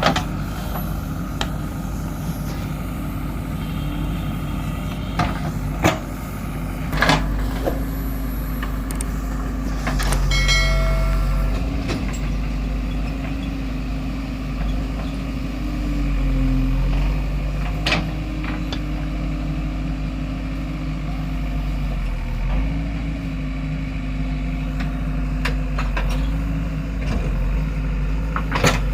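JCB 3DX backhoe loader's diesel engine running, its pitch and level shifting several times as the work loads it, with a few sharp metal clanks and a brief high whine about ten seconds in.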